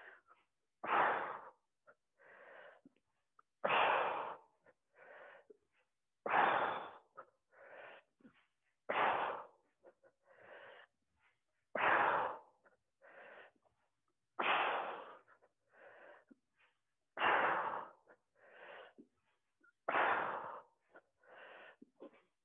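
A woman's hard breathing during an ab exercise: a forceful exhale about every three seconds with each curl-up reach, and a quieter inhale in between.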